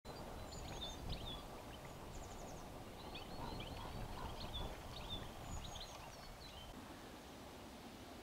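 Birds chirping with many short high notes and little trills, thinning out near the end, over a low rumble of wind on the microphone.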